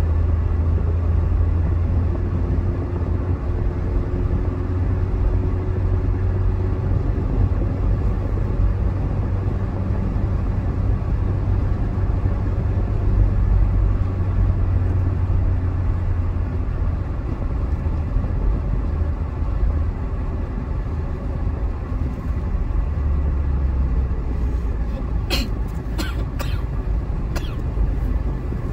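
Steady in-cabin road noise of a car driving at highway speed: a low engine and tyre rumble. A few short, sharp clicks or knocks come near the end.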